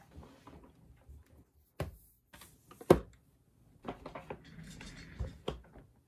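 Handling noises on a desk: a few sharp knocks and clunks, the loudest about three seconds in, with some rustling, as a computer keyboard is lifted and moved away.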